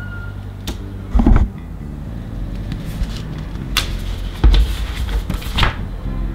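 Printed paper comic pages being handled and moved, giving several brief rustles and swishes of paper, the loudest about a second in and again past the middle, over a steady low drone.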